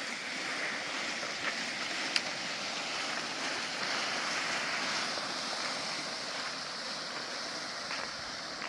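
Steady rushing noise, like running water or wind, with a couple of faint clicks about two seconds in.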